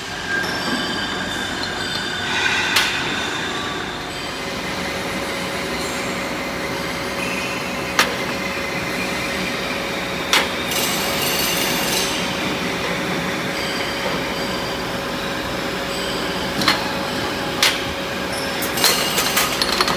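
Steady factory-floor machinery noise with a constant hum, broken by sharp metal clinks of cast valve bodies being handled several times, bunched near the end.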